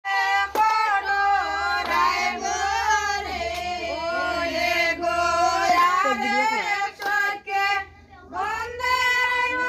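A high female voice singing a melody with gliding, wavering held notes, breaking off briefly about eight seconds in.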